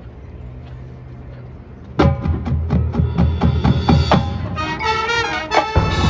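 A high school marching band starts playing about two seconds in, with sharp percussion hits and brass chords after a short lull of low background murmur. A deep bass comes in just before the end.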